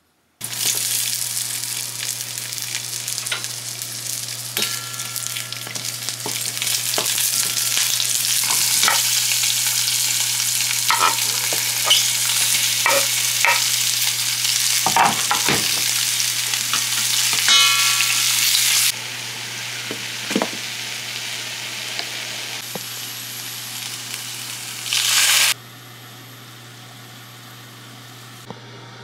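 Onions, mushrooms and sausages sizzling as they fry in a steel pan, stirred with a wooden spatula that clicks against the pan now and then. The sizzle drops away about two-thirds of the way through, flares briefly once more, then settles to a quieter hiss.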